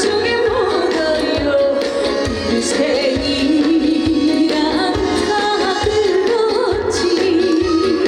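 Korean trot song performed live: a woman singing over amplified music with a steady drum beat.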